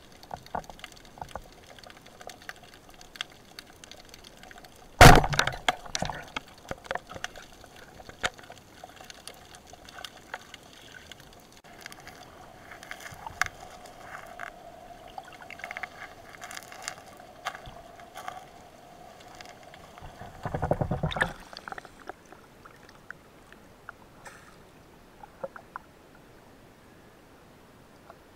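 Water heard through an underwater camera housing: sloshing with a scatter of small clicks and crackles, a sharp knock about five seconds in and a louder rush of water around twenty seconds in. A faint steady hum runs beneath for several seconds in the middle.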